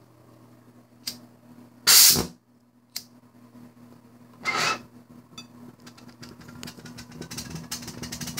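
Homemade bottle jet engine burning perfume vapour being lit: a few short hissing bursts, then a fast crackling that grows louder toward the end as the fuel catches and burns.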